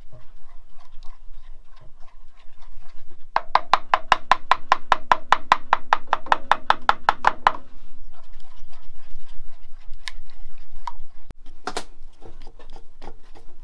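Cake mixture being beaten in a stainless steel saucepan: a fast, even run of utensil strokes against the pot, about six a second, from about three seconds in until nearly eight seconds, with quieter stirring around it and a couple of sharp knocks near the end.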